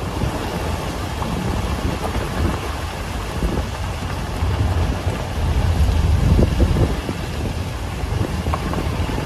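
Gusty wind buffeting the microphone, with rain, in a thunderstorm: a steady rushing noise over a deep rumble that swells about six seconds in.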